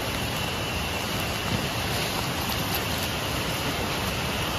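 Steady rushing of flowing water, as from a mountain stream.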